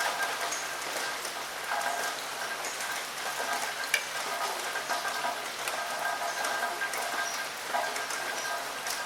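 Steady rain: an even hiss dotted with the ticks of single drops, with one sharper tick about four seconds in. A faint tone comes and goes behind it.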